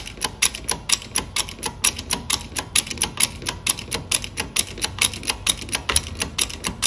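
Roll-cage tube bender at work, bending steel bar: a fast, even clicking of about six sharp ticks a second as it slowly pushes the bar up in the middle into an arc.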